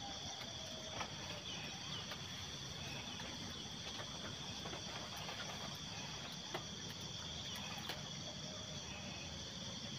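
Steady, shrill chorus of insects such as crickets, holding a constant high pitch, with a few faint clicks.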